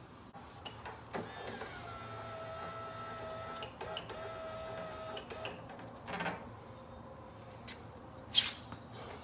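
Small metal clicks and clinks as a pin and washer are worked back into a tractor mower deck's lift-cable bracket by hand, ending in one sharp metallic clink near the end. For a few seconds in the first half a steady high whine sounds over it, briefly broken once.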